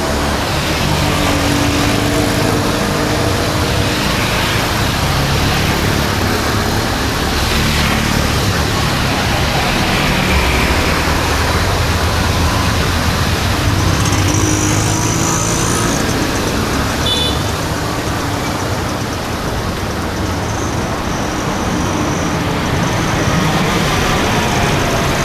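Road traffic passing close by: vehicle engines and tyre noise in a steady, fairly loud wash of sound.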